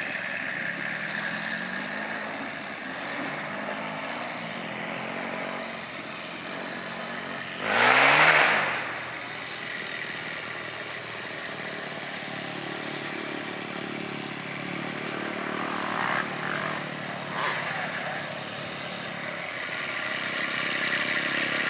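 Engine of a radio-controlled P-51 Mustang model droning as it flies circuits, with one loud fly-by about eight seconds in where the pitch drops as it passes.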